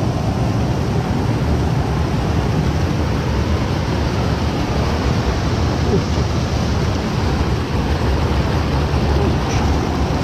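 Water pouring over a small concrete weir into the pool below, a steady rushing.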